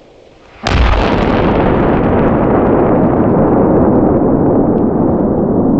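Nibiru 3 kg titanium ground salute firecracker detonating: one sudden, very loud blast about half a second in, followed by a long low rumble that keeps going while its higher hiss slowly dies away.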